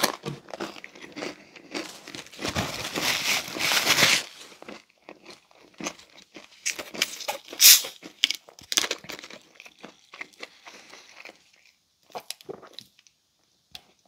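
Close-miked eating of pizza: chewing with many short wet mouth clicks and smacks. A dense crinkling rustle, the loudest part, runs from about two to four seconds in, and the sounds thin out to a few faint clicks near the end.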